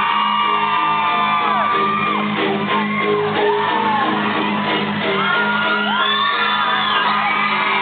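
Fans screaming and whooping loudly over a live rock band playing in a club. Many separate high screams swoop up and down on top of the band's steady low chords.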